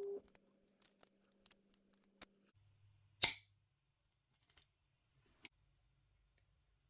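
Small clicks of hand tools and spinner parts being handled, with one sharp metallic click about three seconds in. A steady hum cuts off just as it begins.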